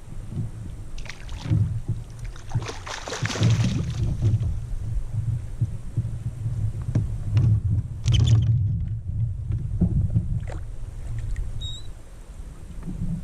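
Kayak on the water: a steady, pulsing low rumble with louder splashy rushes about three and eight seconds in and a few small knocks.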